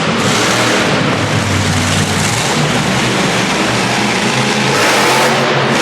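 Monster truck's supercharged V8 engine revving hard, its pitch rising and falling, under a loud wash of noise.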